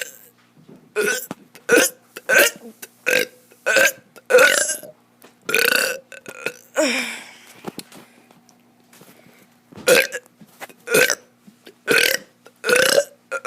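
A child burping on purpose, over and over: about a dozen short, loud burps in quick succession, with a pause of a couple of seconds midway through the run.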